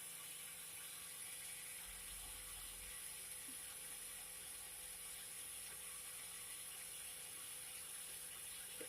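Cotton candy machine running: a steady, faint hiss with a thin, even hum.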